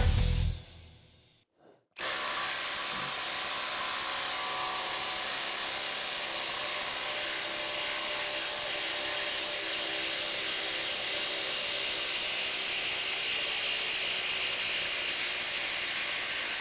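Bosch IDH182 18-volt brushless impact driver hammering steadily under load as it drives a 1/2 x 8 in screw into stacked lumber. It starts about two seconds in, after music fades out, and runs without a break for about fifteen seconds.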